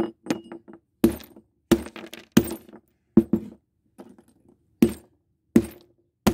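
Claw hammer striking the shards of a smashed glass jar on a wooden board: a series of about ten sharp blows, roughly one every two-thirds of a second, each with a brief clink of glass pieces.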